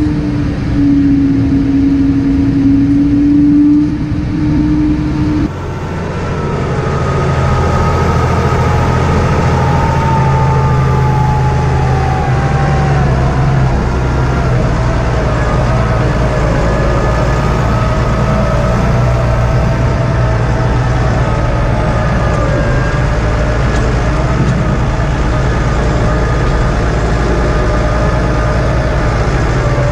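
Tractor engine running steadily under working load, with a whine that drifts slowly lower in pitch. About five seconds in the sound changes abruptly from a single strong hum to a lower engine drone.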